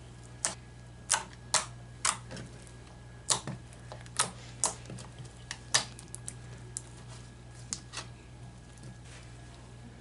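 Pink slime being squished and poked by hand, giving off sharp wet clicks and pops, about a dozen at uneven intervals that thin out near the end.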